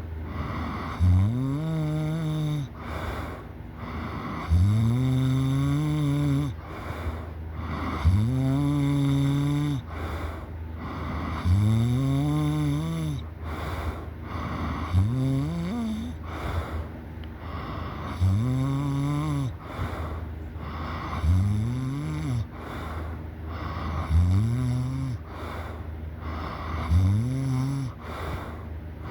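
A person snoring loudly, with a long snore about every three seconds that rises in pitch and holds. A steady low hum runs underneath.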